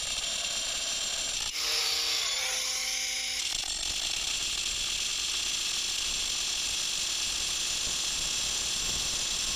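Bosch GWX 18V-15 SC cordless angle grinder with an Expert Multimaterial disc cutting through 10 mm corrugated steel rebar. The grinding is steady and high-pitched throughout, with a few tones shifting within it between about one and a half and three and a half seconds in.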